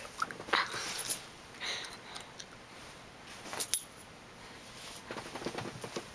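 A dachshund rooting around on a bed: rustling bedding, a few short breathy sniffs, and scattered light taps and clinks, with one sharper tap about three and a half seconds in.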